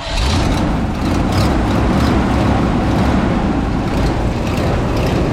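Engine of old Red, the vehicle with the repaired power steering line, running steadily and loud, cutting in abruptly at the start. It is run to test a newly fitted compression-fitting section of the line, which is still leaking.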